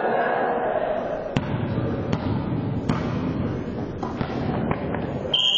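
A volleyball being hit during play: several sharp smacks a second or so apart, with players' voices echoing in the gym hall. A steady high-pitched tone starts near the end.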